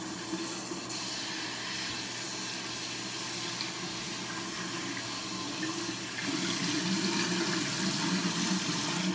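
Water running steadily from a tap as hair is rinsed under it, getting louder about six seconds in.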